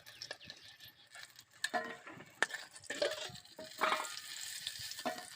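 Sem (flat bean) pakoras frying in oil with a sizzle that grows in the second half, while a metal spoon clicks, clinks and scrapes against the pan several times.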